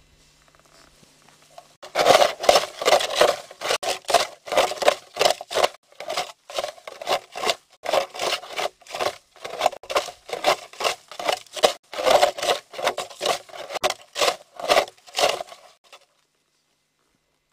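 Branches and leaves of willow brush scraping and swishing against clothing with each step as someone pushes through a dense thicket, in an uneven rhythm of about two to three swishes a second. It starts about two seconds in and stops shortly before the end.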